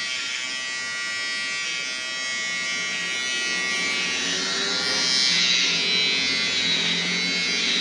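Handheld electric shaver running with a steady buzz while it is pressed against a man's neck and chin stubble. The sound grows a little louder and rougher past the middle.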